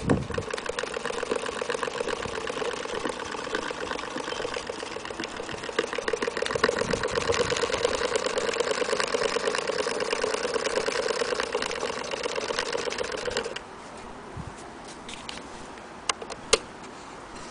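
Antique Willcox & Gibbs chain-stitch sewing machine running steadily, with a steady hum and a fast, even ticking of its mechanism. It stops suddenly about thirteen seconds in, and a few sharp clicks follow near the end.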